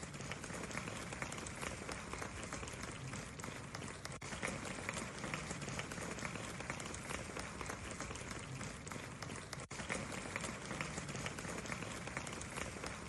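Audience applause: dense, steady clapping with no break.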